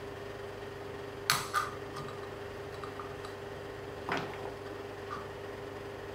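Small lens-barrel parts and optics clicking and tapping together as they are handled and set in place. There are two sharper clinks, about a second in and about four seconds in, with faint ticks between, over a steady low hum.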